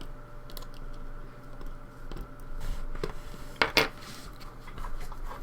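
Small hard objects being handled on a work surface: scattered light clicks and clinks, with two louder clicks close together a little past the middle.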